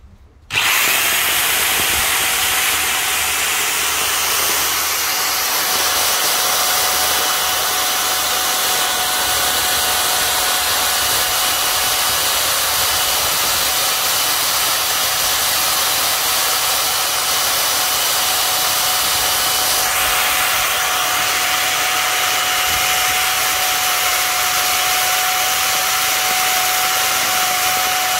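XU1 electric jigsaw switched on about half a second in and running without a break, a loud steady motor noise with a thin whine that sags slightly in pitch near the end.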